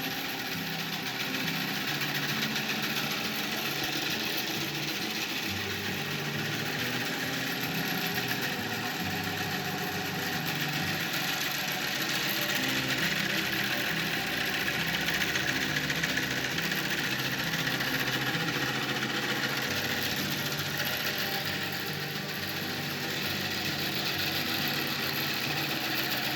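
Antique handmade wooden bandsaw running free without cutting. An old electric motor drives it through a belt, and it makes a loud, steady mechanical din.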